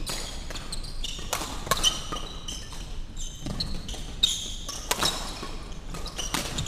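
Badminton rally: rackets striking the shuttlecock and players' shoes squeaking on the wooden court floor, in a string of sharp hits and short high squeaks.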